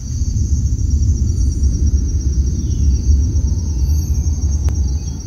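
A fire burning with a loud, steady low rumble and one sharp crack about four and a half seconds in. Insects trill steadily high above it.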